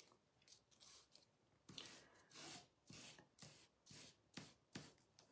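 Faint scratchy strokes of a dark green Stampin' Blends alcohol marker rubbed back and forth on paper, about two to three strokes a second.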